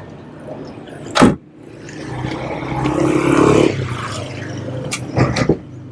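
Knocks and clunks from a manual roll-up aluminium tonneau cover being handled and latched at a pickup's tailgate: a sharp clunk about a second in and a few more knocks near the end, with a rising and falling rush of scraping noise between them.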